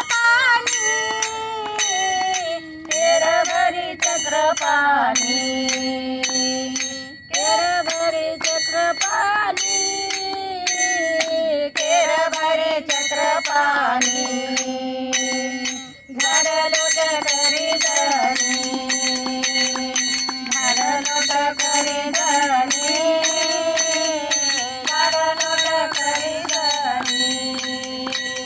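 Women singing a Marathi abhang together, keeping time with small brass hand cymbals (taal) struck in a steady rhythm that rings over the voices. The singing breaks off briefly twice between lines while the cymbals carry on.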